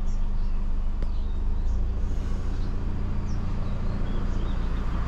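A van driving, its engine a steady low drone under even road noise.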